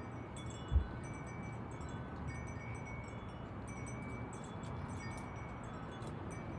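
Wind chimes ringing in scattered, overlapping high tinkling tones, with one brief low thump a little under a second in.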